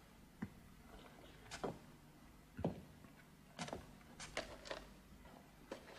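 A few faint, irregular clicks and knocks, some coming in quick pairs, over a low steady hum.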